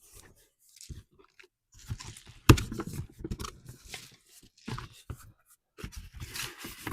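Cardboard box and packing material being handled and pulled open: irregular crunching, crinkling and scraping, with a sharp knock about two and a half seconds in.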